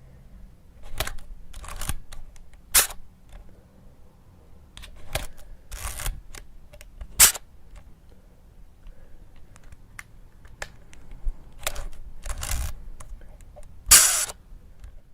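Camera shutter sounds, one after another: single sharp shutter clicks mixed with longer clattering shutter bursts. The loudest and longest burst comes near the end.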